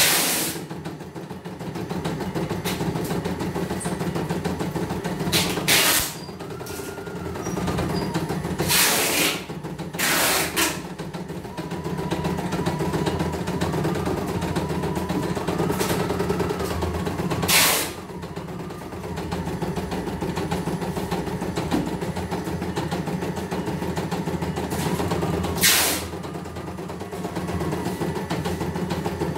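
CNY E900 computerized embroidery machine stitching steadily, its needle running fast as the hoop carriage moves the fabric, with several short, loud bursts of noise.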